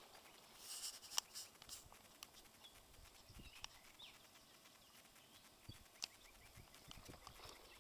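Near silence: faint outdoor ambience with a few light ticks and a brief soft rustle about a second in.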